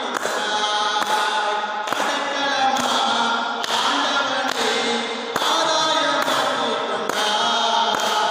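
A man singing a Tamil devotional hymn, his voice with a church-like echo, over a steady beat of about one stroke a second.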